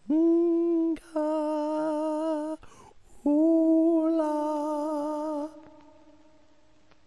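A voice holding three long notes on one steady pitch, each a second or two long; the second and third waver slightly, and the last trails off slowly.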